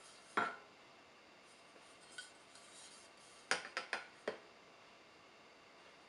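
Metal clinks as the ash vacuum's aluminium nozzle is handled and knocked against metal: one sharp clink about half a second in, then a quick run of four clinks a few seconds later.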